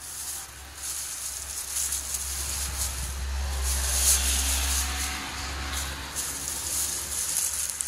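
Thin plastic shopping bags crinkling and rustling as a hand rummages through them, with a low rumble underneath that is loudest midway.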